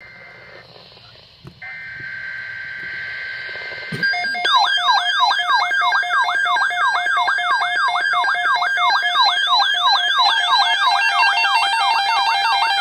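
NOAA weather radio sounding an EAS alert. About a second and a half in come the buzzy two-tone SAME digital header bursts. From about four seconds the radio's loud warbling alert siren repeats its pitch sweeps several times a second, and near the end a steady two-tone attention signal joins it.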